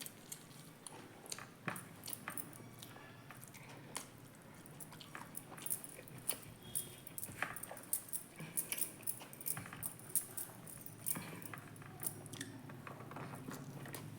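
A person eating close to the microphone: chewing and biting, with many short, sharp crunchy mouth clicks that come thicker in the second half.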